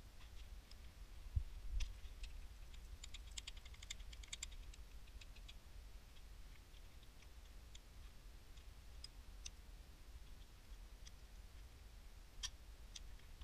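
Faint metal-on-metal clicks and taps of hand tools and an extension bar against an engine block, with a couple of low thumps about one and a half seconds in and a quick run of clicks a little later.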